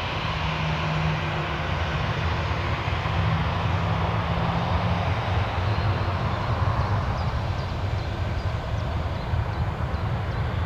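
Ryanair Boeing 737's jet engines running steadily as the airliner taxis, a continuous rumble with a low steady hum in it that fades about halfway through.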